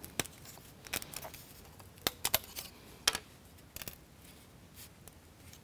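Small laser-cut plywood parts being pressed out of a kit sheet by hand: an irregular series of small, sharp clicks and snaps as the thin wooden tabs holding them break.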